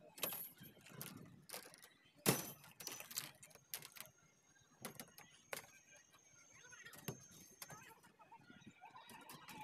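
Irregular clinks and knocks of PVC electrical conduit pipes and tools being handled against a steel rebar mesh as the conduit is laid and tied, the sharpest knock a couple of seconds in.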